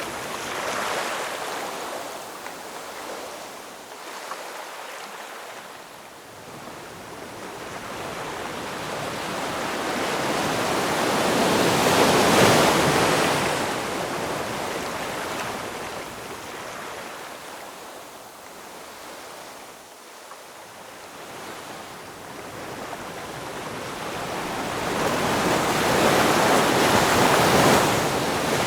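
Ocean waves breaking on a shore: a rushing wash that builds slowly and fades, with two big swells peaking about 12 seconds and 27 seconds in and quieter lulls between.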